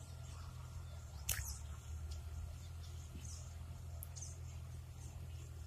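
Small birds chirping in short, high squeaks over a steady low rumble, with one sharp knock about a second and a half in.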